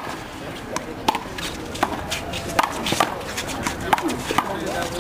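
Rally of one-wall handball: sharp slaps of the small rubber ball struck by hand and bouncing off the wall and concrete court, coming irregularly about once or twice a second.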